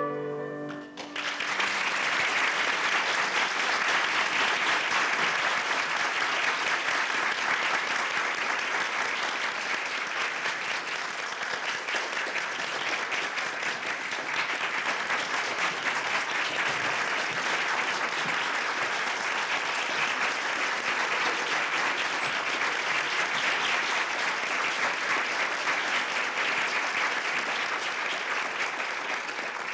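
A large audience applauding steadily for nearly half a minute, dying away near the end. The last note of the orchestra's piece fades out about a second in, as the clapping starts.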